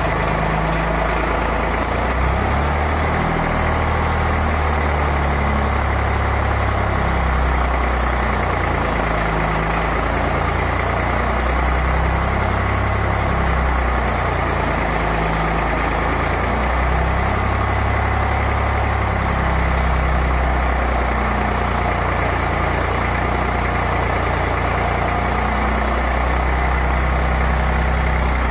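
Eicher three-cylinder diesel engine driving a generator, running steadily under a water-resistance load test.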